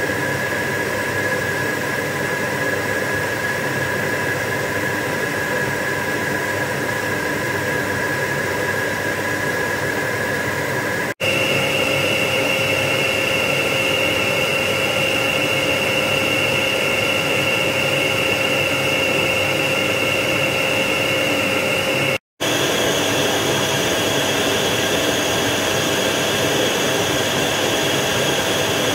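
Samsung VW17H9090HC bagless canister vacuum cleaner running steadily at low power, then medium, then maximum suction. Its motor whine steps up in pitch at each change, about 11 and 22 seconds in, each after a brief cut.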